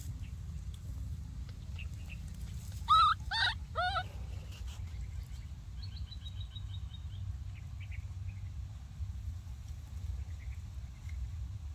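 Three short, loud animal calls about half a second apart, roughly three seconds in, each rising and then falling in pitch. Around six seconds in comes a faint quick run of high chirps, over a steady low rumble.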